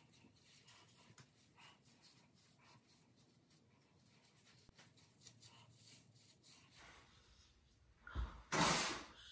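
Soft, faint brushing and rubbing as a tint brush spreads hair dye down dreadlocks, stroke after stroke. Near the end there is a short, loud, breathy burst.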